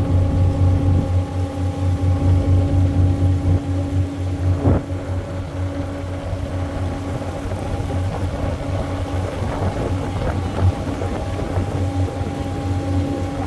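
Cruise boat's engine running steadily: a low, pulsing drone with a steady hum above it. There is a single sharp knock about five seconds in.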